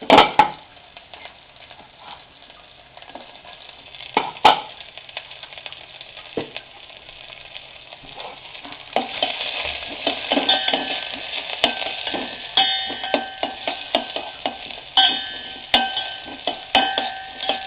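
Chopped onions frying in hot ghee with cumin seeds, a steady sizzle, with a spatula knocking and scraping against the metal pan. A sharp knock comes right at the start and another about four and a half seconds in; from about halfway the stirring turns busier, a quick run of scrapes and clicks with a ringing metallic edge.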